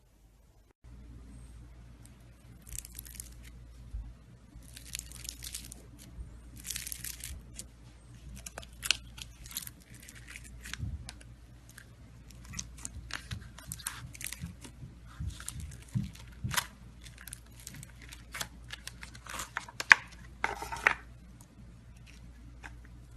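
Slime being squeezed and stretched by hand, with an irregular run of sharp clicks, pops and short hissy crackles. A steady low hum starts about a second in.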